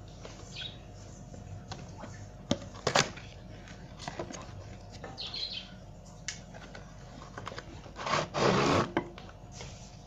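Handling of a cardboard box and a plastic toy concrete mixer truck while unboxing: scattered clicks and taps, two sharp ones close together about three seconds in, then a louder scraping rustle lasting about a second near the end as the toy is pulled out of the box.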